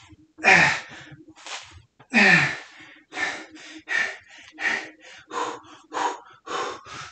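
A man breathing hard through a set of squats, with sharp, voiced gasping breaths. There are two loud ones, falling in pitch, in the first couple of seconds, then quicker panting breaths about one and a half a second.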